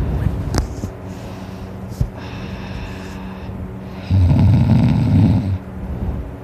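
A man snoring loudly in his sleep: quieter breathing, then one long rattling snore about four seconds in that lasts about a second and a half. Two short clicks come in the first two seconds.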